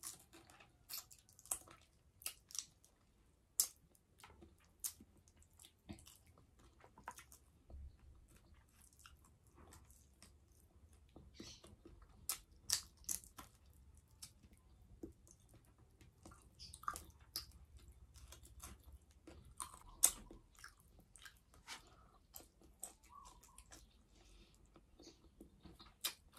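A person chewing and eating fried fish with the fingers close to the microphone: faint, irregular crunches, lip smacks and wet mouth clicks.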